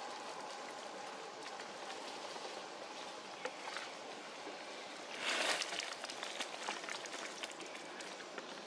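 Steady outdoor background hiss with scattered faint clicks, and a short, louder rustling burst a little past halfway through.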